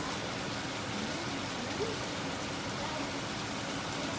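Steady sizzling of pork and holy basil stir-frying in a wok, with a faint voice now and then in the background.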